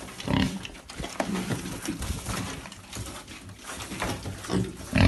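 Young pigs grunting, several short grunts spread through, over the scuffle of the animals moving.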